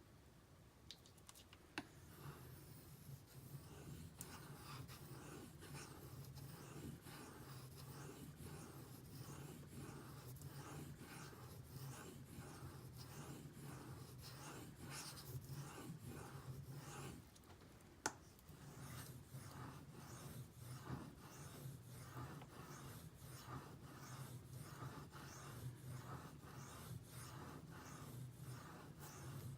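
Faint, rhythmic scraping of a D2 steel knife blade drawn back and forth over a Shapton Pro 5000-grit whetstone, the final polishing stone, roughly two strokes a second. It stops briefly with a single click about two-thirds of the way through, then resumes.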